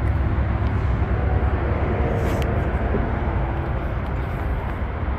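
Steady low rumble of outdoor background noise with no single clear source and no speech.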